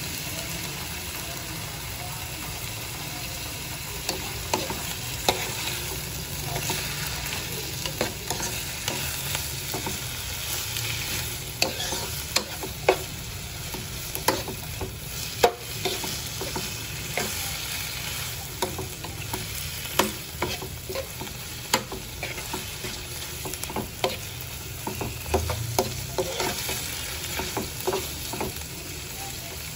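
Chicken breast pieces frying with onions and garlic in a pan, sizzling steadily while being stirred, with frequent sharp taps and scrapes of the utensil against the pan.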